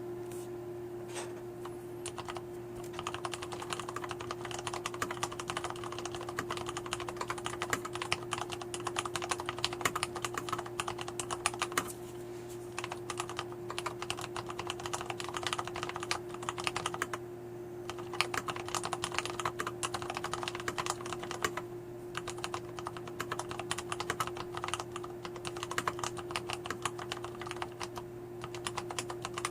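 Continuous fast typing on a Leopold FC750R mechanical keyboard with lubricated Cherry MX Brown tactile switches, a dense run of keystroke clicks broken by a few brief pauses.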